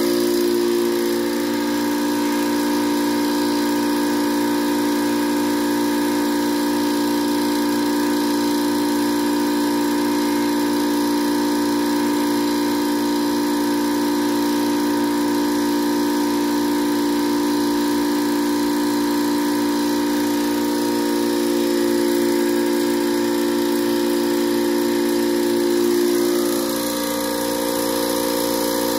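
Small electric high-pressure air compressor running steadily with a constant hum while compressing biogas from an inner tube into a propane tank. Its tone shifts slightly and its level dips near the end.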